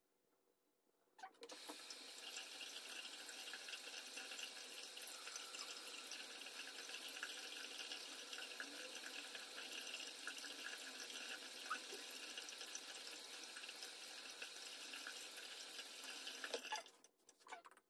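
Water running steadily, as from a tap, starting about a second in and shutting off near the end.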